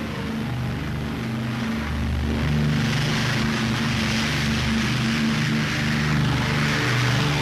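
Bristol Pegasus nine-cylinder radial engines of a Short Sunderland flying boat running after being started up one at a time. The engine sound gets louder, with more propeller hiss, about three seconds in.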